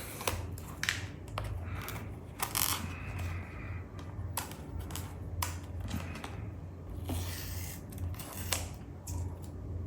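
Paper and cardboard watch packaging being handled and opened: irregular short clicks, taps and rustles, over a steady low hum.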